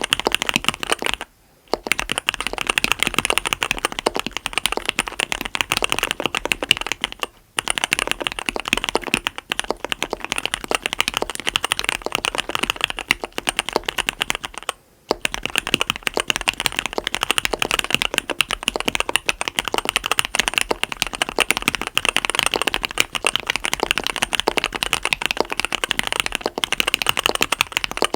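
Fast, continuous typing on a mechanical keyboard with Cherry MX RGB Black linear switches on 55 g progressive SPRiT springs, a SUS304 stainless steel plate and Leopold keycaps. Dense keystroke clacks, broken by three brief pauses.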